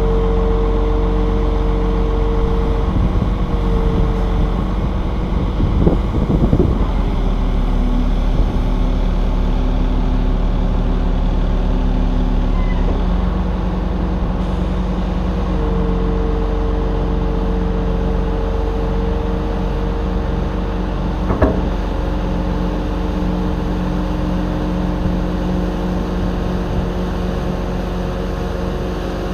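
Volvo A35 articulated dump truck running loaded with clay, its diesel engine and drivetrain heard from the dump body, with a whine that steps down in pitch a few seconds in and back up a few seconds later as the truck changes speed. Sharp knocks from the body and load land about six seconds in and again around twenty-one seconds.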